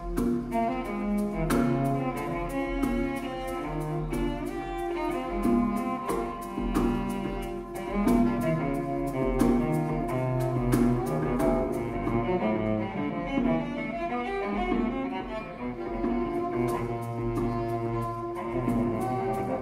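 Improvised acoustic music: a cello bowed in sustained and moving lines, over a hand drum struck in quick, frequent hits.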